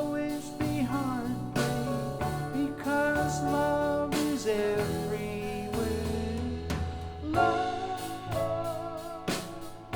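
A recorded folk-rock song played through Harbeth SHL5+ hi-fi loudspeakers, with a singing voice over instruments and a drum beat.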